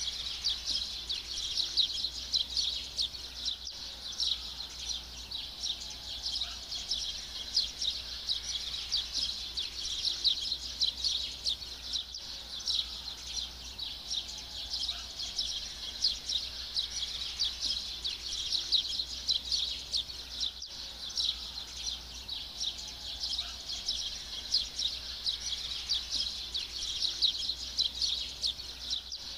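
A dense, unbroken chorus of rapid high chirping from many small birds. It comes and goes in a short loop that repeats about every eight and a half seconds.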